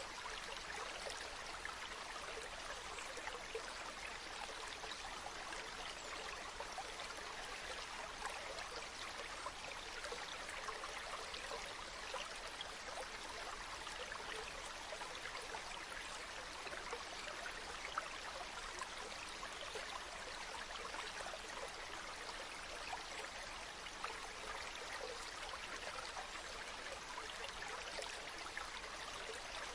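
Shallow stream running steadily over rocks, a constant rushing babble flecked with small splashes and trickles.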